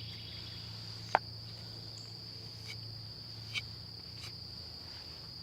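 Steady high-pitched buzz of insects, with a single sharp click about a second in.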